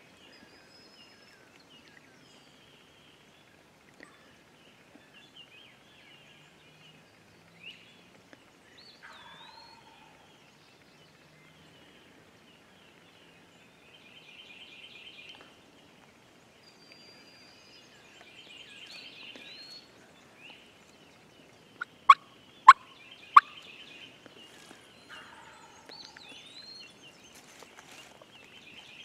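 Wild turkey gobbler gobbling in the distance, several rattling gobbles a few seconds apart, with small songbird calls between. A little over two-thirds through come three sharp, loud clicks in quick succession.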